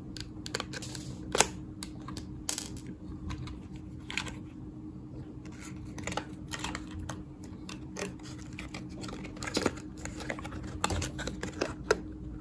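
Irregular light clicks and taps of handling: wire body clips being pulled from a 1:28-scale RC car and its plastic body shell lifted off the chassis.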